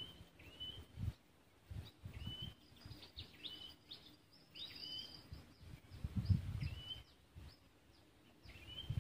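A bird calling over and over in short whistled notes, each rising into a brief held tone, about one a second, with a few higher notes mixed in midway. Low rumbles come and go underneath, the strongest about six seconds in.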